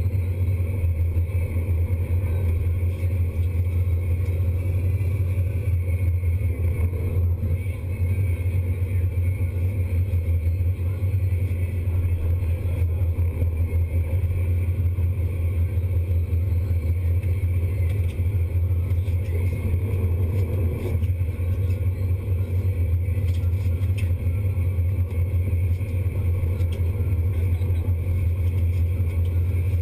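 Sport-fishing boat's engine running with a steady, deep drone.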